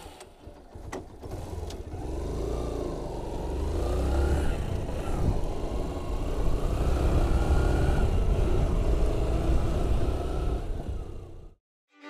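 Yamaha Factor 125's single-cylinder engine pulling away and accelerating, its pitch rising and then dropping at gear changes, over a heavy low wind rumble on the microphone. It cuts off suddenly near the end.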